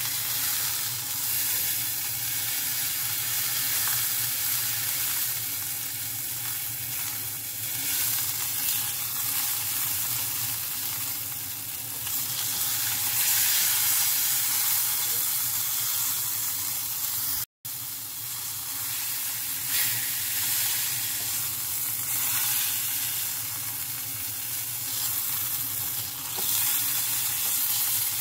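Beef round searing in olive oil in a hot frying pan: steady sizzling that swells and eases, with a few light crackles. It cuts out for an instant about two-thirds of the way through.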